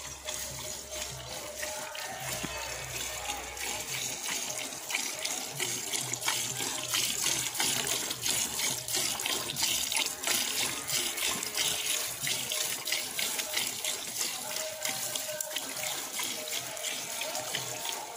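Jets of milk squirting into a steel bucket as a water buffalo is milked by hand: a rapid, hissing spatter of alternating streams that grows louder about five seconds in.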